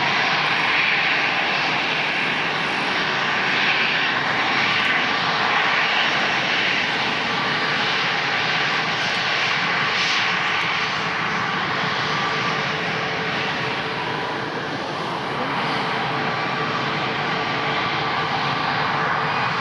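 Airbus A319-111 jet airliner with its two CFM56 turbofan engines running steadily as it taxis onto the runway for departure: an even engine rush with a faint steady whine.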